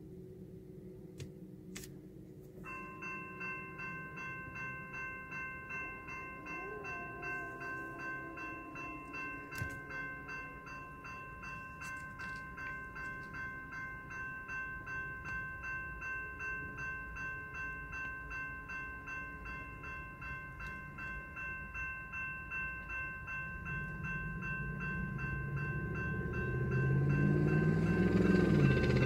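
Railroad crossing bell starts ringing about three seconds in and keeps ringing in an even, steady pulse. Near the end the low rumble of an approaching train builds and grows louder.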